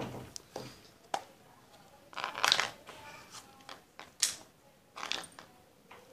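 Handling noises from a clear plastic tub of loom rubber bands being brought over, set down and rummaged: a few separate knocks and rustles, with the longest rustling clatter about two seconds in and a sharp knock about four seconds in.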